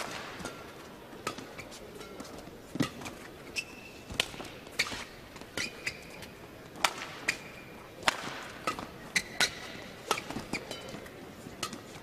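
Badminton rally: sharp cracks of rackets striking the shuttlecock at irregular intervals, with short squeaks of shoes on the court floor, over a low crowd murmur.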